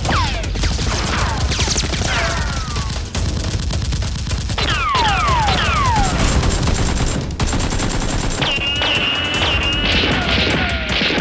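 Rapid, continuous gunfire sound effects standing in for the blasters' shots, with repeated falling whistling glides laid over them, over background music. A high whistling tone is held for about two seconds near the end.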